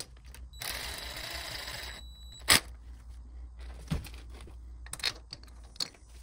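Ratchet and socket working the head bolts on a Briggs and Stratton twin-cylinder engine's cylinder head: a short rasping run of about a second and a half, then a sharp metallic clack about two and a half seconds in, followed by a few lighter clicks of metal on metal.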